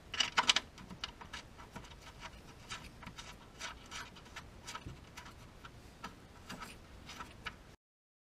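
Light clicks and ticks of a car's fuel filter and its plastic quick-connect fuel lines being handled and snugged into place by hand, with a quick cluster of louder clicks right at the start and scattered small clicks after. The sound cuts off abruptly near the end.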